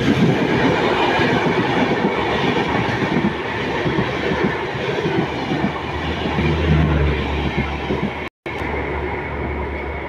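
New Delhi–Dibrugarh Rajdhani Express passing close on the adjacent track, a steady loud noise of its coach wheels running on the rails. From about six seconds in a low steady hum joins, and just after eight seconds the sound drops out for a moment.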